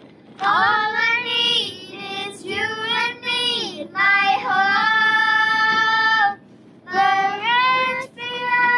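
Children singing a song with sung phrases and held notes, one long note held for about two seconds midway, with short pauses between phrases.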